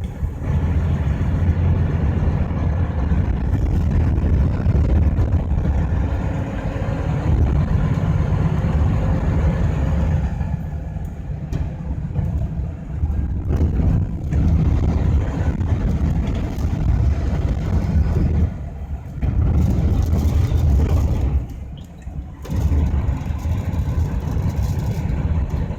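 Strong typhoon wind buffeting a truck, mixed with the rumble of its engine and the road; the low roar swells and drops several times with the gusts.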